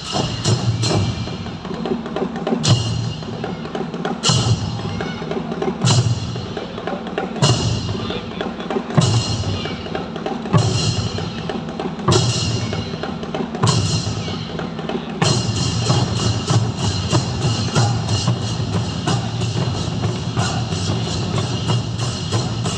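Thai drum ensemble playing: low drum strokes under a ringing crash about every one and a half seconds, then, about two-thirds of the way through, a fast dense run of rapid strokes.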